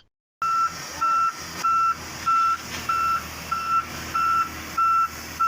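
Reversing alarm of a Volvo wheeled excavator beeping as the machine travels backwards: one steady high tone, about three beeps every two seconds, starting just after a brief gap, over a faint engine hum.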